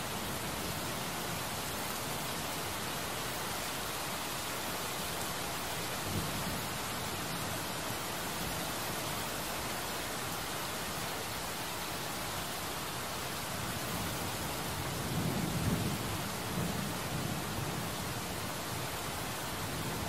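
Heavy rain pouring steadily, an even hiss of many drops hitting a surface. A brief low rumble swells up about three-quarters of the way through.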